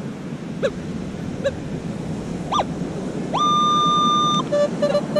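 Minelab Equinox metal detector signalling a target: a steady high beep held for about a second a little past halfway, then several short lower beeps, as the coil sweeps the sand. A few brief chirps come earlier, over a steady surf-and-wind hiss.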